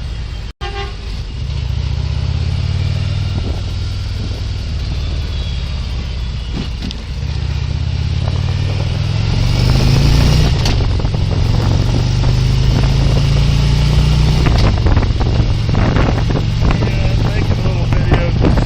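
Police motorcycle's engine running while riding, with wind noise on the body-worn camera's microphone; it gets louder about nine seconds in.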